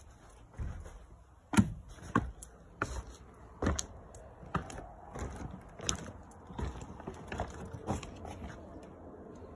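Footsteps of a person walking, a short sharp step roughly every two-thirds of a second.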